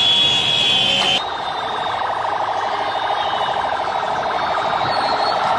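Electronic siren with a fast, pulsing warble, coming in abruptly about a second in.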